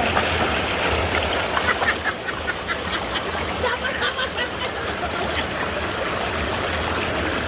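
Brook running steadily. A run of short animal calls sounds over it for a few seconds, starting about a second and a half in.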